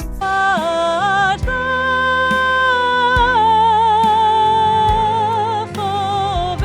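Music with a sung melody: a voice holds long notes with vibrato, sliding between pitches, over a slow beat with a low thud about every second and a half.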